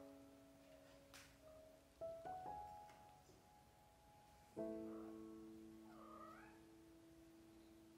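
Soft piano music, a few quiet chords struck and left to fade, with a golden British Shorthair kitten giving a small, high meow about six seconds in.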